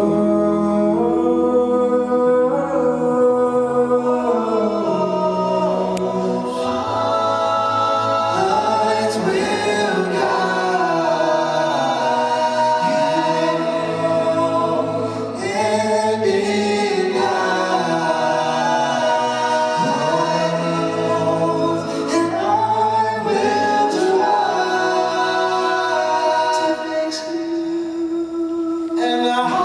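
All-male a cappella group singing live: several voices in close harmony holding and moving through chords over a sung bass line, with no instruments.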